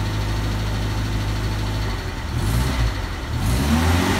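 Reliant Robin's small four-cylinder engine running just after a successful start, idling steadily, then revved briefly with a rise in pitch near the end.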